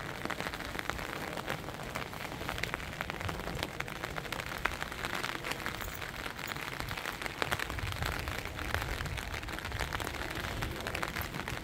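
Heavy rain falling steadily, with many separate drops ticking close by.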